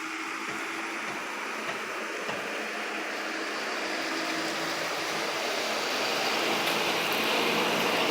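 A motor running steadily with a low hum over a rushing noise, growing gradually louder as it comes closer.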